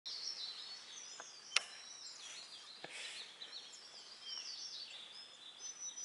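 Forest birdsong: several small birds chirping and twittering in quick, high, overlapping calls. Three sharp clicks cut through, the loudest about a second and a half in.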